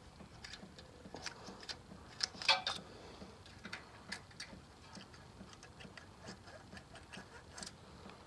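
Light, irregular metallic clicks and taps of hand tools on the VW Beetle engine's valve gear during valve adjustment, with a brief louder clatter about two and a half seconds in.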